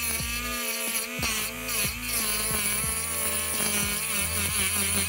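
Handheld rotary tool with a cut-off wheel, running and grinding the end of a small aluminium tube to smooth it. Its motor whine wobbles up and down in pitch as the wheel bears on the metal.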